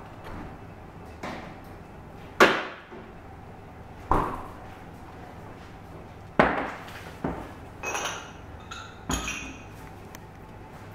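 Sharp knocks and clinks of tableware, about six strikes spread out with pauses between them. The later ones come in a quick cluster with a short, high metallic ringing.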